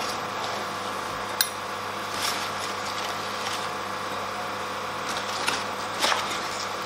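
A metal spoon scooping flour from a paper bag into a Pyrex glass measuring jug. There is one sharp tap of the spoon on the glass about a second and a half in, and a few soft scrapes and paper rustles later on.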